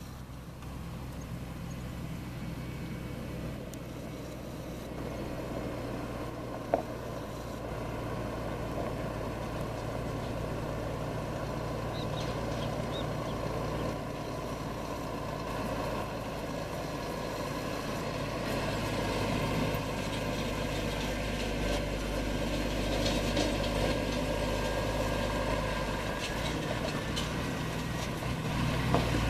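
Scania semi-truck's diesel engine running steadily as it drives along a dirt road, growing louder as it comes closer. A single sharp click about seven seconds in.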